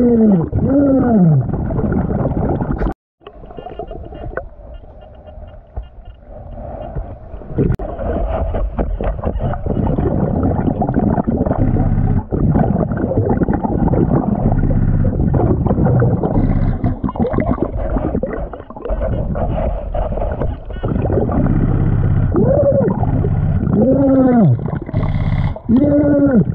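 Underwater sound of a diver breathing through a Blu3 Nemo hookah regulator: a low rumble and gurgle of exhaled bubbles. A moaning tone rises and falls on each of several breaths near the end, and scattered clicks and knocks come through in between.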